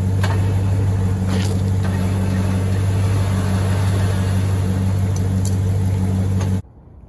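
Warn VR8 electric winch motor running steadily under power on the truck's front winch mount, with a steady hum and whine, then stopping abruptly near the end.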